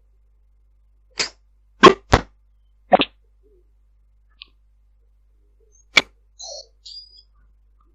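Irregular short, sharp knocks and clicks of unknown origin, about five of them, with dead silence between, heard over a Viber voice call; a couple of faint short chirps follow near the end.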